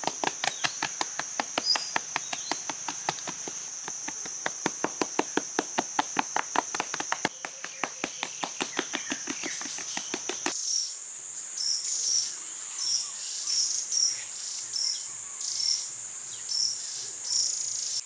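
A steady, high-pitched insect chorus. Over it, sharp taps come about four a second for the first half, then stop suddenly and give way to slower knocks about once a second.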